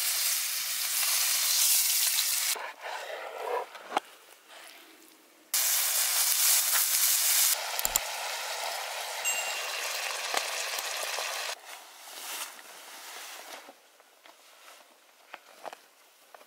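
Steak searing in oil in a cast-iron skillet over a campfire, sizzling loudly for the first couple of seconds and again for about six seconds in the middle. Between and after those, quieter stretches with scattered clicks and knocks.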